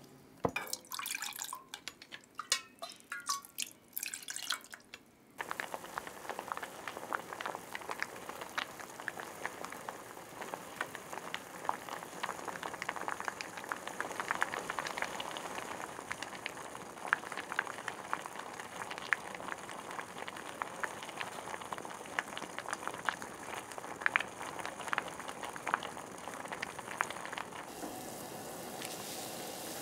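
A knife cuts through lotus root on a wooden cutting board in several separate strokes. About five seconds in, this gives way to a pot of broth simmering with a steady bubbling and small pops around a wooden drop lid (otoshibuta), with lotus root slices cooking beneath it.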